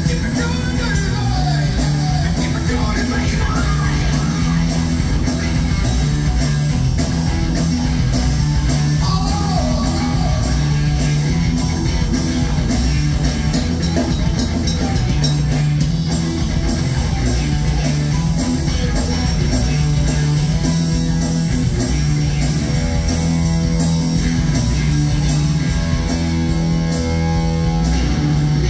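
Live rock band playing with electric guitars, bass guitar and drum kit, and a singer.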